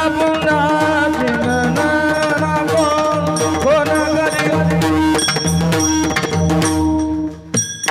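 Instrumental passage of a Marathi bhajan: mridang (pakhawaj) drumming in a steady rhythm under held melodic tones, with high ringing tones joining in the second half. The music thins out shortly before the end.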